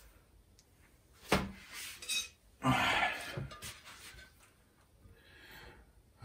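Hand tools clinking and scraping on a loudspeaker's metal parts while it is being taken apart. There is one sharp clink about a second in, then a short scraping rattle around three seconds in.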